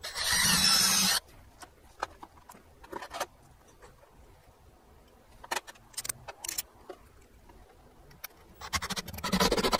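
Cordless drill driving a screw into a wooden ceiling: the motor runs for about a second at the start, then light clicks and handling noises, then another second-long run with rapid clicking near the end.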